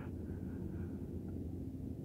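Steady low rumble of outdoor background noise, such as wind on the microphone or distant traffic, with a few faint, brief higher sounds in the first second.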